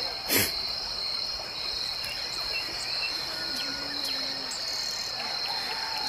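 Steady high-pitched chirring of crickets and other insects, with a few faint bird chirps. A single sharp knock about half a second in.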